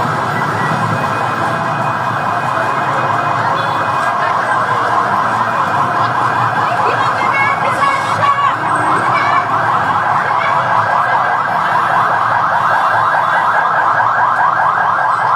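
Fire truck sirens sounding in a fast, repeating yelp, over a low engine and traffic rumble.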